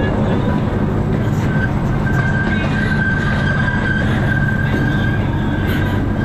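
Miniature ride-on train running, a steady low rumble from its locomotive and wheels on the track. From about a second and a half in, a thin high squeal holds steady for several seconds as the wheels round a curve.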